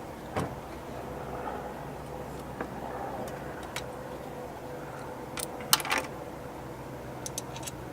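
Scattered sharp clicks and clinks of hand tools and metal parts while the thermostat housing is worked loose on a Nissan VQ V6 engine. The loudest is a quick cluster of clicks about six seconds in, over a steady low hum.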